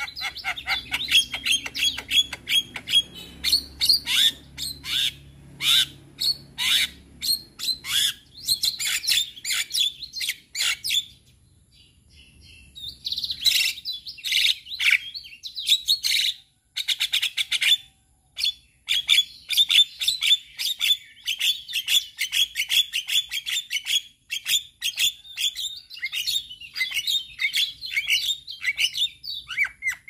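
Male Javan myna singing its chattering song: fast runs of sharp notes, clicks and whistles, broken by two short pauses near the middle.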